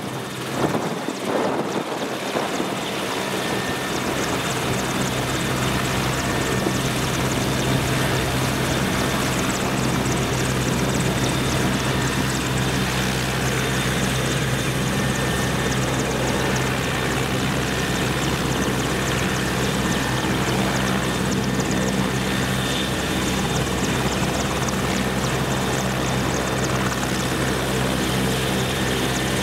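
AgustaWestland AW101 Merlin helicopter running close by: a steady low rotor thrum under a constant high turbine whine. It grows louder over the first few seconds, then holds steady.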